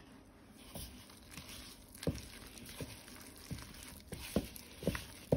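Hand squeezing and working a shaggy flour-and-water dough in a plastic bowl: soft, irregular squishes and taps that start about two seconds in and come roughly every half second.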